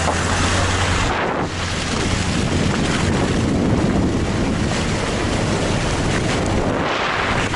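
Wind buffeting a camera microphone held out of a moving car's open window, over the steady low hum of the car running along a wet dirt track.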